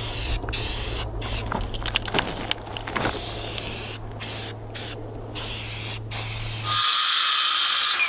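Aerosol spray paint can hissing in a series of short bursts with brief breaks between them, as black paint goes onto a metal drain frame. Nearly seven seconds in it cuts to a Ridgid circular saw running with a steady whine.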